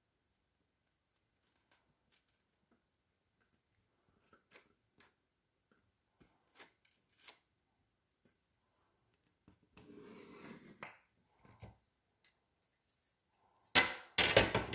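Pencil scratching on a paper photograph along a metal ruler, with faint scattered ticks and a longer scratch about ten seconds in. Near the end comes a loud knock as the metal ruler is moved.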